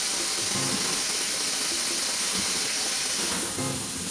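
Kitchen tap running into a metal sink, a steady hiss of water splashing over hands and potatoes being rinsed; the hiss eases slightly near the end.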